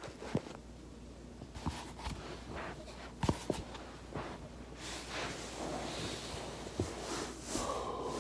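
Scattered sharp pops of back joints cracking while rolling on a foam roller, the loudest pair about three seconds in, with softer rubbing noise from the body moving on the roller in between.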